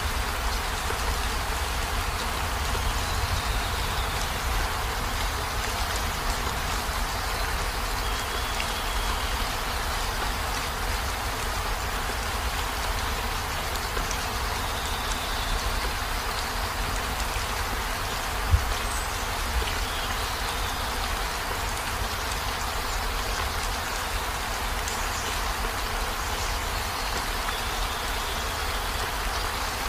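Steady heavy rain falling, an even hiss with a low rumble underneath. A single sharp tap stands out about two-thirds of the way through.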